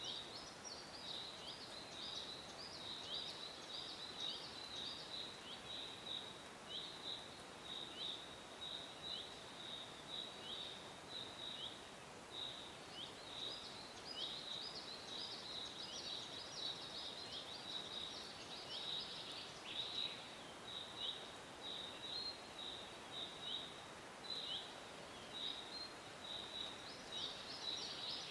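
A steady chorus of small animal calls: short, high chirps, many dipping in pitch, repeating several times a second and overlapping, with brief busier flurries.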